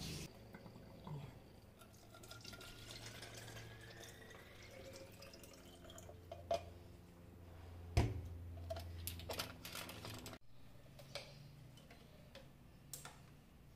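Liquid being poured into a glass or small container, the pitch rising as it fills, followed by a few light clicks and knocks.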